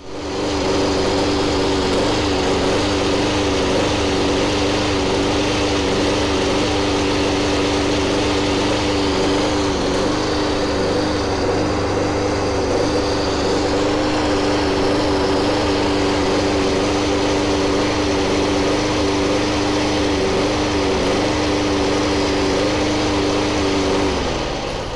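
Masport Contractor 21-inch walk-behind mower's single-cylinder engine running steadily, then cutting off near the end. The owner presents this as an engine that runs poorly for a six-month-old mower; he allows it may be a defect, or that some would say it only needs an adjustment.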